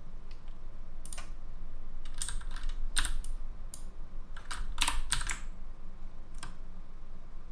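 Computer keyboard keys being pressed in irregular taps and short quick runs, busiest around two to three seconds in and again around five seconds in.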